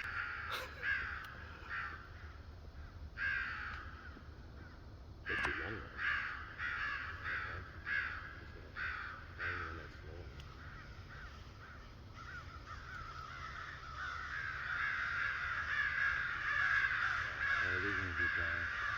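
Crows cawing, separate harsh caws at about one or two a second. From about thirteen seconds in they swell into a dense, continuous chorus of many overlapping caws, the loudest part.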